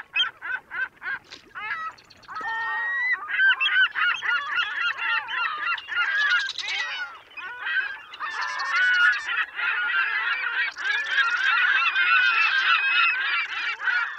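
A flock of birds calling: many loud calls that bend up and down in pitch and crowd over one another, after a run of short, quick calls in the first second or two.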